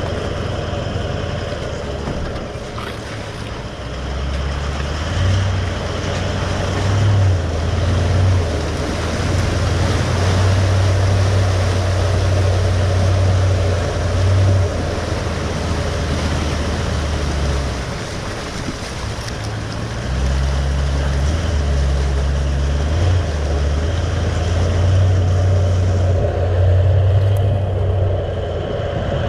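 Four-wheel-drive vehicle's engine running at low revs while driving a rough off-road track, its low note shifting up and down with the terrain. It eases off briefly about two-thirds of the way through, then picks up again.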